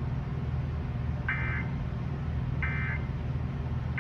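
Emergency Alert System end-of-message signal: short bursts of SAME digital data tones, a buzzy warble, about a second and a half apart, two of them with a third starting right at the end, over a steady low hum.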